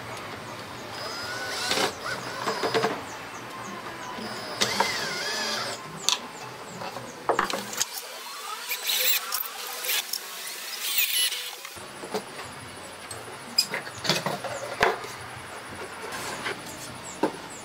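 Workshop assembly noises: repeated knocks and clatter of wooden parts, screws and tools being handled on a wooden workbench, with a few short whirs from a cordless drill.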